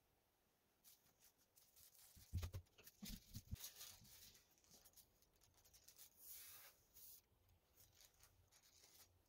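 Quiet handling of tissue paper: crinkling and rustling as the sheet is folded over an acrylic ornament, with a few soft knocks between about two and three and a half seconds in as the ornament is set down on the table.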